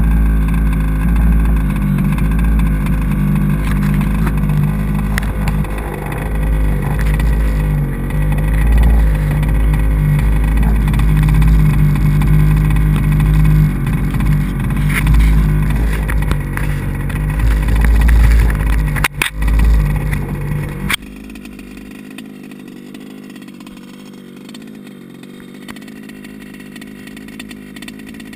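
HPI Baja 5SC's small two-stroke petrol engine running close to the onboard camera, its level wavering a little, with a brief dip about 19 seconds in. About 21 seconds in, the sound drops suddenly to a much quieter steady hum.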